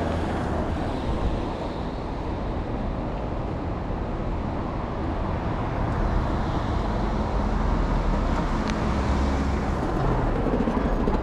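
Steady city street background noise with a low rumble, as heard while walking through a shopping street.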